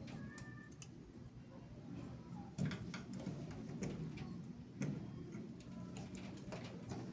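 Faint, scattered clicks and light knocks of small metal hardware and a tool being handled while fitting a screen door closer, a few seconds apart.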